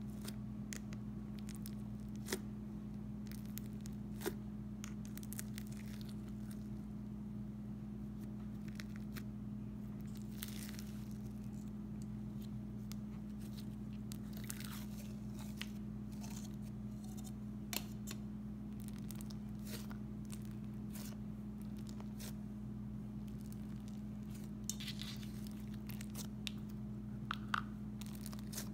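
Clay-based butter slime being poked, pressed and stretched by hand: soft squishing with small pops and clicks, and brief tearing sounds as it is pulled apart. A steady low hum underneath.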